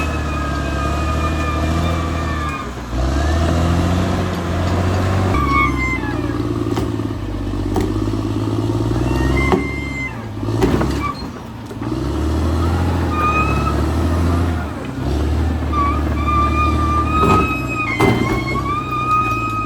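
Caterpillar D6R XL bulldozer's diesel engine working under changing load, its note dropping and picking up again several times. A high steady whine runs over it, with a few sharp clanks about halfway through and near the end.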